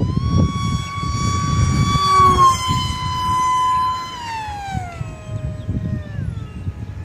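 Whine of a small brushless electric motor spinning a 5x4 propeller, holding a steady high pitch for about four seconds, then falling smoothly to about half that pitch as it slows.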